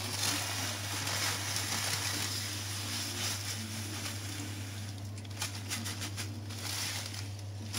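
Granulated sugar pouring steadily onto mango pits, a continuous grainy hiss, followed about five seconds in by a run of short rustles and clicks.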